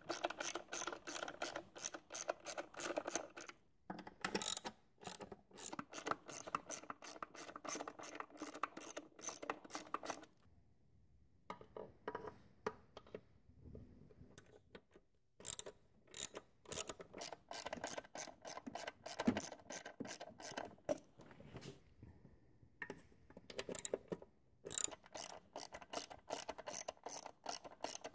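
Hand socket ratchet on an extension clicking in quick runs as bolts on the engine are turned, with short pauses between strokes and a longer pause in the middle.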